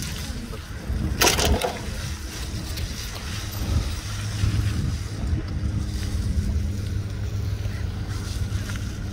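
Wind rumbling on the microphone, with a low steady hum underneath and a brief loud rustle about a second in.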